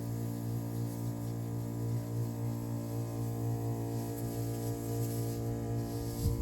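A steady low hum with many even overtones, unchanging throughout, and a brief low thump near the end.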